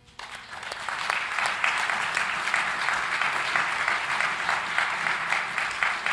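Audience applauding. The clapping starts just after the beginning, swells within the first second, then goes on steadily.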